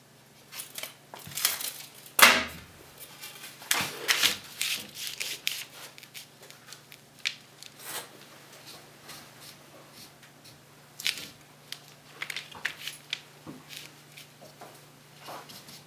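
A long wooden batten knocking and rubbing against a paper-covered wall as it is lifted and held in place: irregular knocks, scrapes and paper rustles, with the loudest knock about two seconds in.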